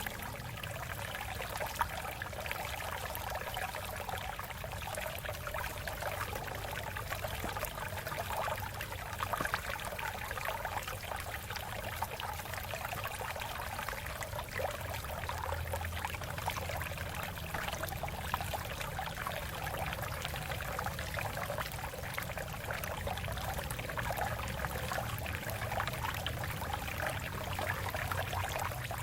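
Shallow water flowing and trickling over rocks, a steady babbling stream.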